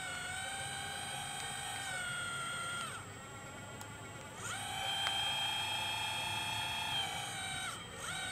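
Radio-controlled logging truck's small electric motor whining, its pitch gliding up and down. The whine drops away about three seconds in, comes back higher a second and a half later, and dips briefly near the end.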